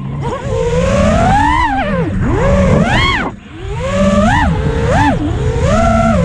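FPV racing quadcopter's brushless motors and props whining, the pitch swooping up and down quickly with throttle and dropping sharply about three seconds in.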